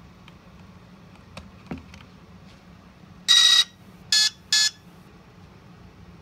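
Electronic startup beeps from a UMX J-3 Cub's speed controller, sounded through the motor: one long beep about three seconds in, then two short beeps. Faint clicks come just before them.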